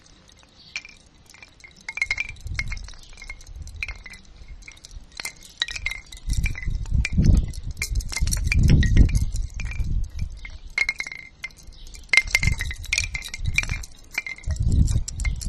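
Bamboo wind chime stirred by the wind: hollow bamboo tubes and the clapper knocking together in irregular clacks, each with a short ringing tone. Gusts of wind rumble on the microphone in several bursts, loudest a little past the middle.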